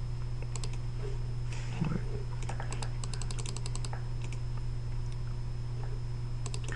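Light clicking at a computer, with scattered clicks and a quick run of them around the middle, over a steady low electrical hum.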